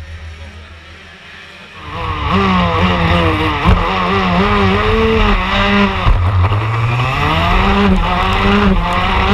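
A low steady hum, then about two seconds in a racing kart engine comes in loud, heard onboard. Its pitch rises and falls again and again as the throttle opens and closes through the corners.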